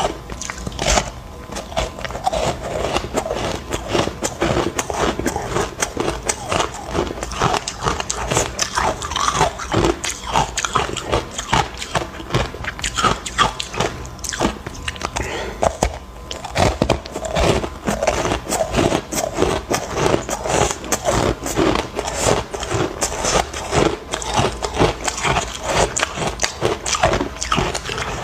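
A person biting and chewing ice chunks dusted with matcha powder: continuous crunching and cracking of ice between the teeth, several crunches a second.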